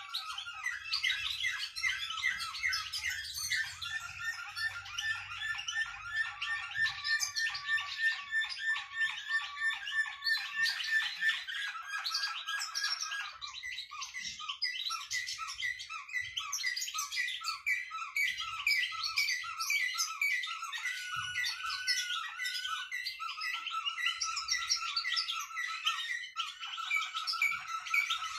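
Several caged songbirds, the desert 'flawta' birds, singing without a break. Their songs overlap in fast runs of repeated notes and drawn-out whistled tones.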